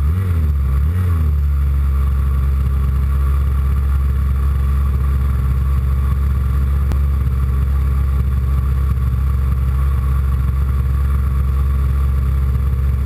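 Engine of a Hobbico Hobbistar 60 RC floatplane running close to an onboard camera as the model taxis on the water. The pitch wavers briefly at the start, then holds steady.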